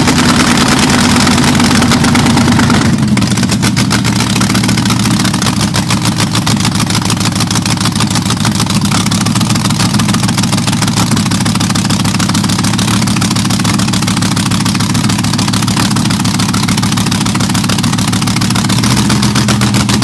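Weiand-supercharged 327 Chevrolet small-block V8 of a 1962 dragster running: held at raised revs at first, it drops to a steady idle about three seconds in and picks up again near the end.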